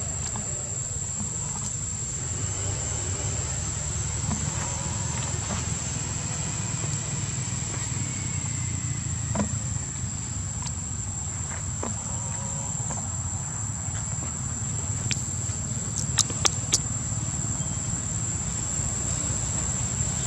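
A steady, high-pitched insect drone runs over a continuous low rumble. A few sharp clicks come about sixteen seconds in.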